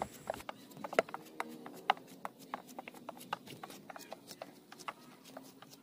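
Knife slicing a peeled bamboo shoot by hand: a string of sharp, irregular clicks, a few a second, as the blade cuts off thin pieces.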